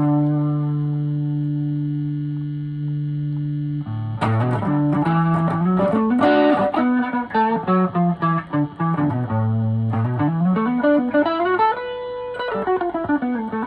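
Gretsch Super Axe electric guitar played through its built-in phaser: a chord held ringing for about four seconds, then a run of single notes that climbs and then falls back down near the end.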